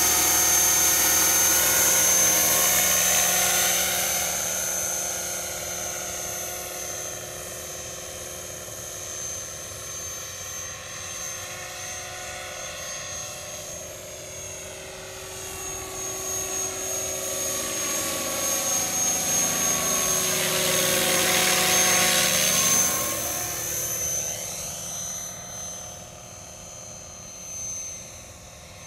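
Radio-controlled scale MD 500D helicopter in flight, its rotor and motor running with a steady high whine. Loud at first, it fades as the helicopter flies off, swells again as it passes close about 20 seconds in, then fades as it moves away.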